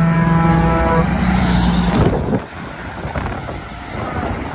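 Heavy trucks passing on the road. A loud, steady droning tone is held for about two seconds and then drops in pitch as a truck goes by, followed by rougher engine and tyre noise with wind on the microphone.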